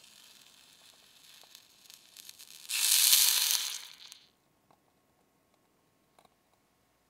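Water poured from a tiny ceramic teapot into a hot miniature saucepan. It hisses loudly for about a second and a half, starting nearly three seconds in, then dies away. Before the pour, faint crackling comes from the pan.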